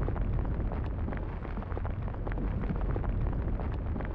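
Deep, steady rumble with many short crackles and pops scattered through it: an animated soundtrack's effect of the earth rumbling under the glowing plate boundaries.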